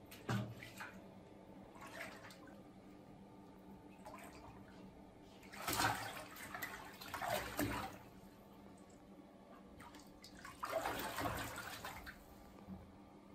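Water splashing and sloshing in a bathtub as a puma wades and paws at a live fish, with two longer bouts of splashing about six and eleven seconds in and smaller splashes between.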